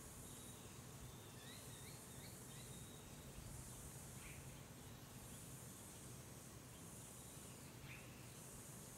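Faint outdoor ambience: a high insect chorus swelling and fading in waves every second or two, with a few short bird chirps, a cluster about two seconds in and single ones near the middle and near the end.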